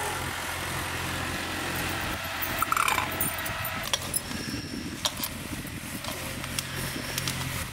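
Engine of a farm machine ploughing a nearby field, running with a steady low hum. A few sharp clicks come through over it, and a short chirp sounds about three seconds in.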